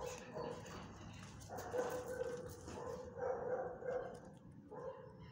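Dog barking and whining in a run of short cries, about one every half second.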